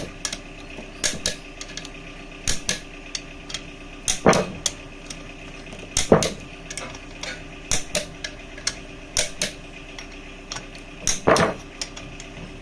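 Torque wrench and ratchet clicking on crankshaft main bearing cap bolts, with metal clinks of the socket on the bolts. The clicks come irregularly, often in pairs, as the bolts are tightened to about 30 lb-ft.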